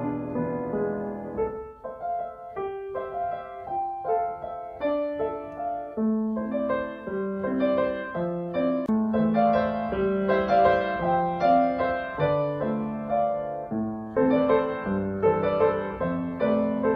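Piano music: a slow melody over held chords, with a brief dip in level about two seconds in.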